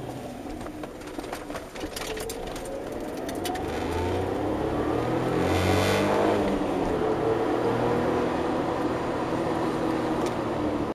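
Suzuki Cappuccino's turbocharged F6A three-cylinder engine heard from inside the cabin, pulling hard under acceleration with its pitch rising and the level climbing for several seconds. A scatter of sharp clicks comes in the first few seconds.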